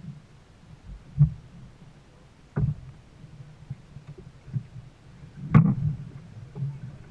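Dragon boat being paddled on choppy water: irregular thuds and splashes of water and paddles against the hull, about one every second or two, the loudest a little past halfway, over a low steady rumble.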